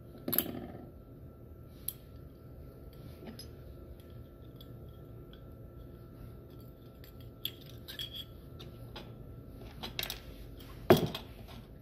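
Small metal parts clinking and knocking on a workbench as a metal hinge bracket is handled and fitted onto a bending block. There is a knock just after the start, scattered light clicks, and the loudest knock near the end.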